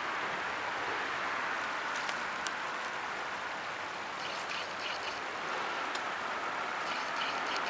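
Steady rush of creek water running over the shallows, with a few small clicks and taps scattered through it.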